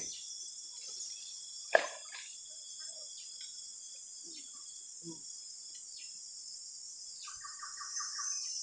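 Steady high-pitched chorus of insects in riverside forest. A single short, sharp sound comes a little under two seconds in.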